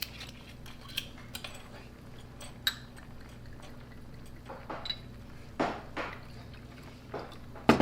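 Drink being poured into small glasses, with scattered clinks of glass and bottle. Two pours come about five and a half to six seconds in, and a sharp clink of glass comes near the end.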